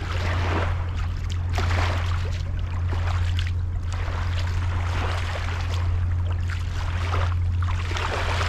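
Water sloshing and splashing in irregular surges every second or so, over a steady low hum.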